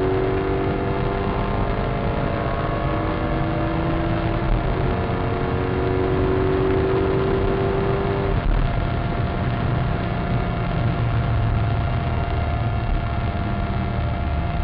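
Maserati Cambiocorsa's V8 engine heard from inside the cabin under hard acceleration: the revs climb through a gear, fall back at an upshift about four and a half seconds in, and climb again. About eight seconds in the engine note drops abruptly and carries on lower and steadier, with one constant note above it.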